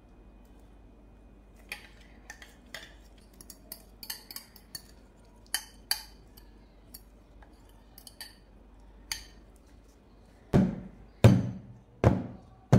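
A fork clinking and scraping against a metal mixing bowl in light, irregular clicks. Then an aluminium cake pan full of batter is knocked down on the countertop in a run of heavy thuds about two-thirds of a second apart, tapping out the air bubbles.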